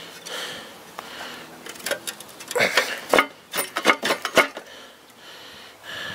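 Metal engine parts and tools clinking and knocking against each other during an engine teardown, with a quick run of sharp knocks about three to four and a half seconds in.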